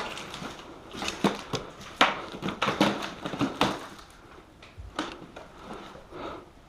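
Footsteps of a player moving, with knocks and clatter of gear, about three steps a second for a few seconds, then slowing and quieter.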